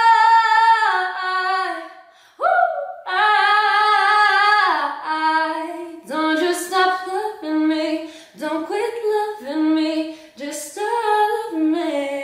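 A young woman singing solo a cappella, with no accompaniment. Long held notes at first, a short breath about two seconds in, another long held note, then shorter notes that slide up and down.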